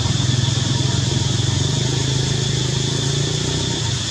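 An engine idling steadily: a low hum with a fast, even pulse, under a thin, steady high-pitched drone.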